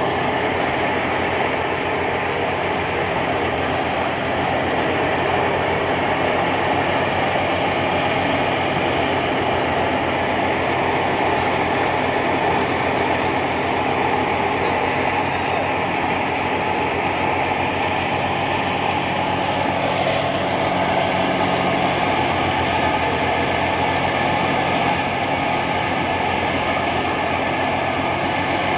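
Tractor-driven wheat thresher running steadily under load as wheat sheaves are fed in, its drum and the Massey Ferguson tractor's engine making one continuous, dense mechanical drone.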